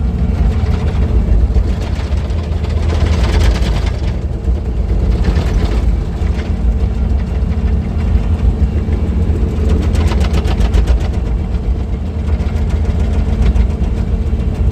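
Diesel engine of heavy earth-moving equipment running steadily, with a strong low hum and several louder, harsher surges as it works.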